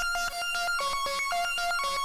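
Elektron Analog Four/Keys analog synthesizer playing a fast arpeggiated preset, short pitched notes at about eight a second. The note pattern moves to new pitches a little under halfway through.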